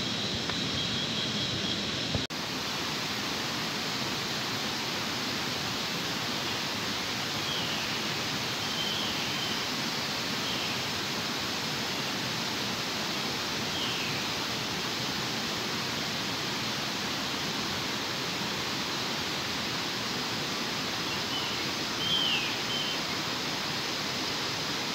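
Steady rush of a forest river, with a few short, falling bird chirps now and then.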